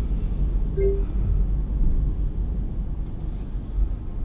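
Car interior driving noise: engine and tyres giving a steady low rumble, with a short beep about a second in.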